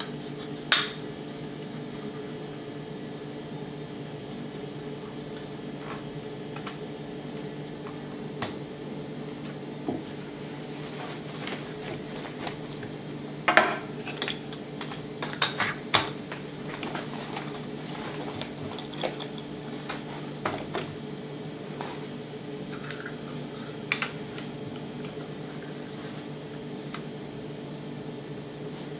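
Sharp plastic-and-metal clicks and clacks of pistol magazines being pushed into and pulled out of FastMag polymer magazine pouches, scattered at first, then a quick run of them about halfway through, over a steady low hum.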